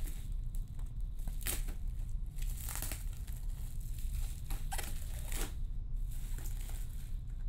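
Plastic bubble wrap crinkling and tearing in short, irregular rustles as it is pulled off a boxed action figure, over a steady low hum.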